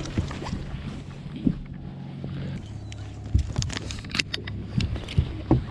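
Boat motor humming steadily, its pitch shifting about two and a half seconds in, with a run of sharp knocks and clatter in the second half.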